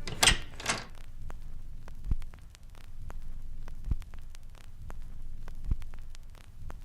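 Low steady hum with static crackle and scattered faint clicks, opening with two sharp bursts of noise and then a soft low thump roughly every two seconds.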